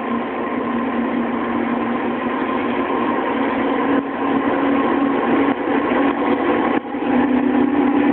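EH500 electric freight locomotive approaching: a steady mechanical hum with held tones. The lower tone steps slightly higher after a brief dip about seven seconds in.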